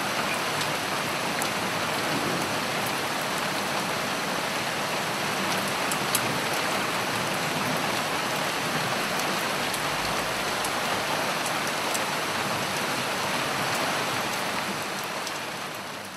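Steady, even rain with scattered faint drop ticks, fading out near the end.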